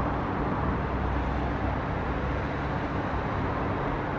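Steady outdoor city noise: an even rush of distant traffic.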